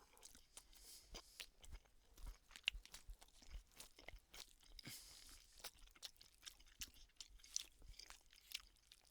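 Faint chewing of a chicken tikka ready meal: many small, quiet mouth clicks.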